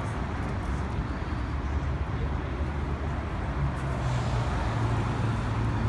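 City street traffic: a steady rumble of vehicle engines and road noise, with a low engine hum that rises a little in pitch about three and a half seconds in.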